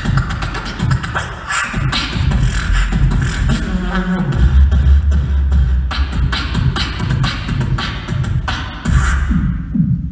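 Solo beatboxer performing into a handheld microphone through a PA: a fast rhythm of mouth-made kick, snare and hi-hat clicks over deep bass. About halfway through a deep bass note is held for over a second, and near the end the higher clicks drop away, leaving only low bass pulses.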